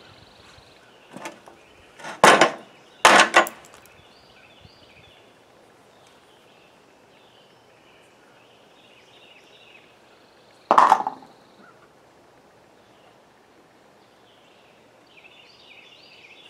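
Hammer blows on an old lawnmower's steel wheel axle held in a vise, knocking a rust-bound wheel off. There is a light tap about a second in, two hard strikes soon after, and one more hard, briefly ringing strike near the end.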